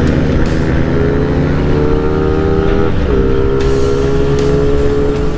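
Motorcycle engine running at speed with wind noise; the engine note climbs slightly, dips briefly about three seconds in, then holds steady. The engine has been bored up from 57 to 59 mm.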